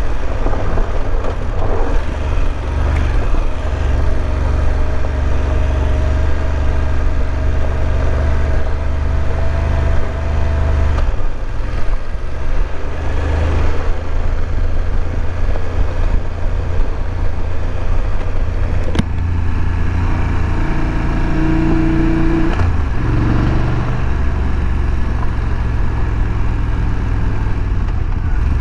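BMW F850 GS parallel-twin engine running as the motorcycle is ridden, over a steady low wind rumble on the microphone. The engine pitch climbs for several seconds, then drops about eleven seconds in, and there is a sharp click about two-thirds of the way through.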